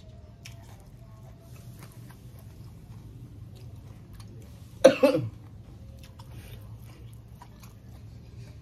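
A person chewing a mouthful of raw beef, with soft wet mouth clicks, and one loud short cough about five seconds in.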